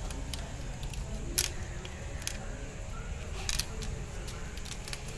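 Screwdriver working the terminal screws of switches on a wired switchboard: small irregular clicks and scrapes of metal on screw and plastic, with a sharper click about a second and a half in and another about three and a half seconds in.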